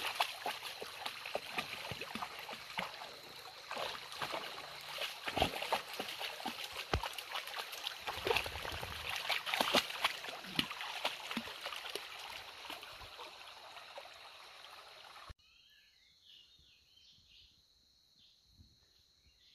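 Shallow stream rushing and trickling, with irregular splashes as a dog wades through the water. About 15 seconds in it cuts off suddenly to a much quieter stretch with faint, short high chirps.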